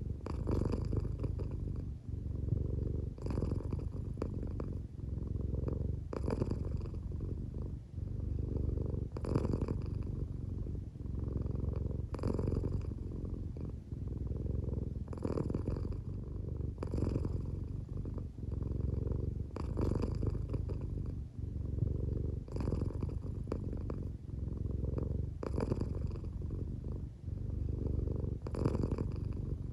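American Shorthair cat purring steadily while half asleep. The purr swells and briefly breaks with each breath, about every three seconds.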